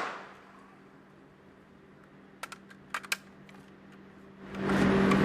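A few sharp clicks and knocks of an AK-47 rifle being handled and readied, after the fading tail of a loud bang. Near the end a steady rushing noise with a low hum comes up and is the loudest sound.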